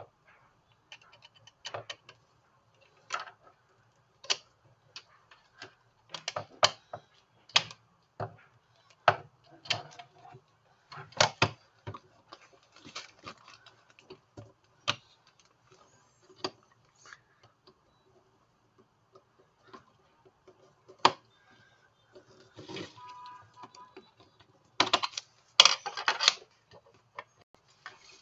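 Scattered sharp clicks and taps of hard plastic being handled, about one every second or so, with a quick flurry near the end. A faint short run of steady electronic tones comes about 23 seconds in.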